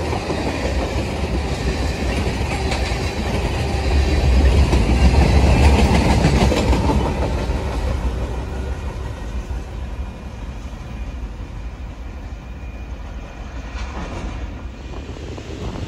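Freight train of tank cars and boxcars rolling past, wheels rumbling and clicking over the rails. Loudest about five seconds in, then fading as the end of the train moves away.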